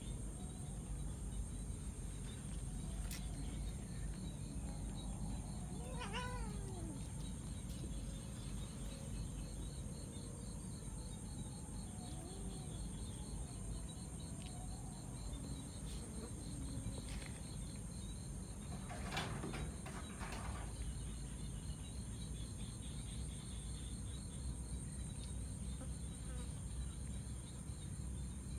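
Steady high-pitched insect chorus with a faster pulsing chirp running under it. A cat meows once about six seconds in, the call falling in pitch, and again more faintly about twelve seconds in. A short rough burst of noise comes about two-thirds of the way through.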